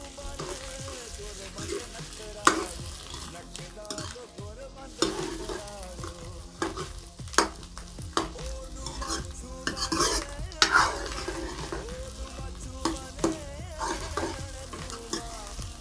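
A steel ladle stirring and scraping potato and onion filling around a steel kadhai, with irregular clinks and scrapes against the pan over a light sizzle of frying oil.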